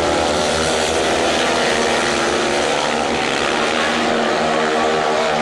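Speedway motorcycles racing, their 500 cc single-cylinder engines running hard in a loud, steady drone.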